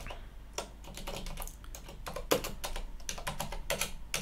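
Typing on a computer keyboard: an uneven run of short key clicks as a short name is typed in.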